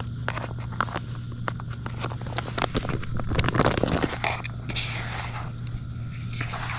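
Groundbait of rice-bran powder and corn being mixed by hand in a bowl: scattered clicks and knocks, with a denser scraping rustle about three and a half seconds in, over a steady low hum.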